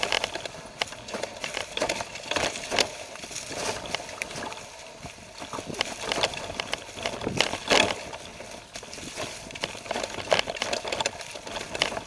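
Mountain bike riding down a rough, leaf-covered trail: tyres crunching through dry leaves, with frequent irregular knocks and rattles as the bike jolts over hidden rocks and ruts.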